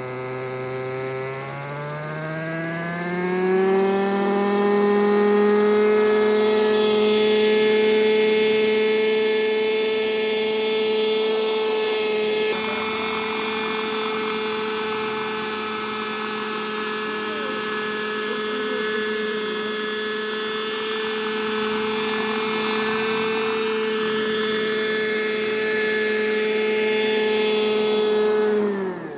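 Hirobo Shuttle glow-engine RC helicopter spooling up, its engine pitch rising over the first few seconds, then a steady high-pitched drone of engine and rotor while it flies. Near the end the pitch falls sharply as it is throttled down on landing.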